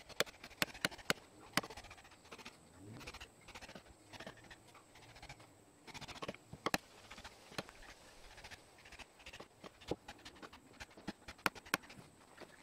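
Handling noises from gloved hands working at a steel rebar stake and its string line: scattered sharp clicks, a quick run of them about a second in and more near the middle and end, over faint scraping and rustling.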